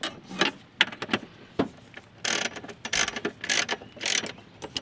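Socket ratchet wrench clicking as it is worked back and forth, tightening the mounting nuts of a new clutch master cylinder. A few separate clicks come first, then quick runs of ratcheting from about halfway in.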